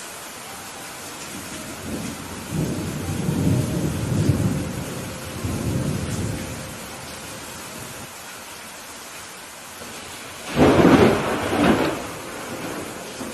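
Steady rain with rolling thunder: a low rumble builds about two seconds in and fades by about seven seconds. A louder, sharper thunderclap follows about ten and a half seconds in.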